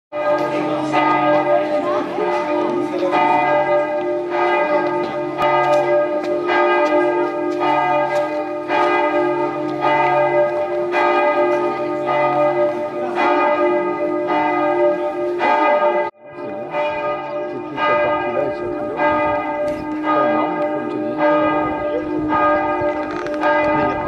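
Church bell of Mont Saint-Michel ringing, struck over and over about once a second, with each strike's hum running into the next. The ringing breaks off briefly about two-thirds of the way through, then carries on.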